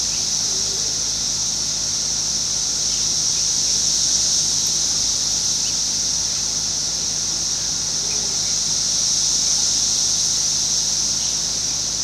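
Chorus of Brood X periodical cicadas (17-year cicadas) singing: many insects at once making a continuous high-pitched drone that holds steady throughout.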